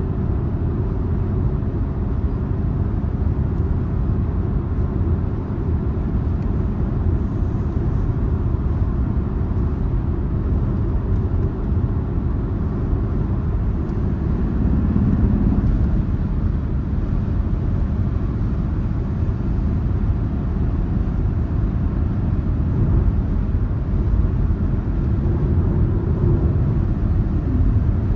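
A car driving on the road: a steady low rumble of engine and tyres, with a slightly stronger low hum for a moment about halfway through.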